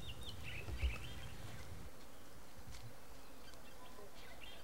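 Faint forest ambience: a steady hiss with a few short, high chirps about a second in and again near the end, and a soft low thud just under a second in.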